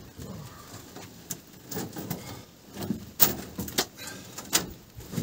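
A string of irregular knocks and slaps in the boat as a large catfish is hauled up out of the hull, the loudest about three seconds in and again near the end.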